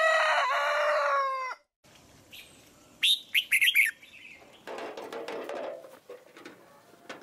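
A rooster crowing once, one long crow that falls in pitch at the end and stops about a second and a half in. About three seconds in, a few quick, high bird chirps follow.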